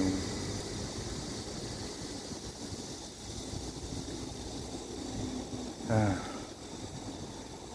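Steady outdoor background noise beside a road, with a short falling-pitched voice sound from the man about six seconds in.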